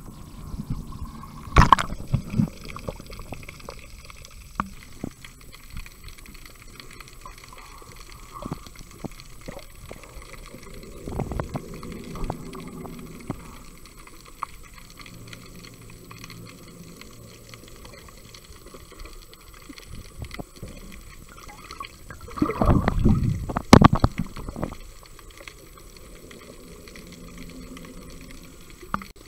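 Water sloshing and bubbling around a snorkeler's camera held underwater, muffled, with scattered clicks and three louder splashing bursts: near the start, about a third of the way in, and about three quarters in.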